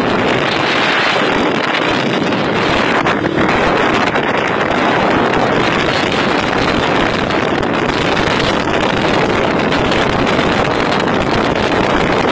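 Steady wind rushing over the microphone of a moving vehicle, with motorbike and road noise running underneath.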